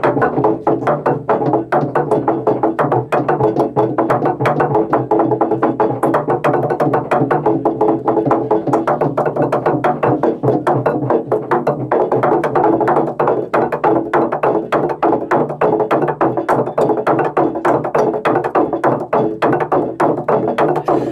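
Traditional Sepik spirit-house music: fast, dense drumming on wooden drums over steady held tones.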